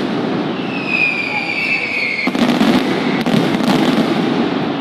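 Mascletà firecrackers going off in a continuous rattle of bangs. A whistling firework sounds a falling whistle for about a second and a half, then sharp louder cracks come a little after two seconds in and twice more about a second later.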